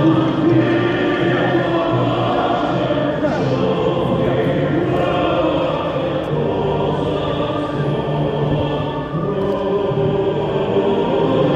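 Choral music: a choir singing sustained notes, continuous and steady in level.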